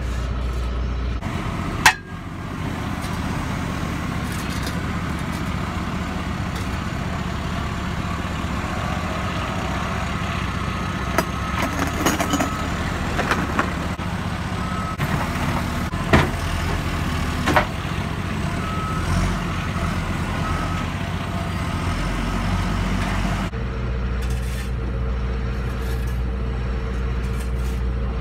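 Backhoe loader's diesel engine running steadily, its note shifting about a second in and again near the end. A few sharp knocks stand out, the loudest about two seconds in.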